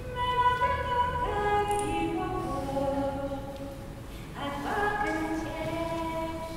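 Several voices singing a traditional song a cappella in long held notes, in two phrases with a short break about four seconds in.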